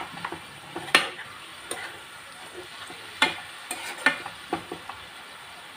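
Metal spoon stirring and turning keerai greens in a kadai on the stove: irregular sharp clicks and scrapes of the spoon against the pan, about seven in all, over a faint sizzle of the greens cooking.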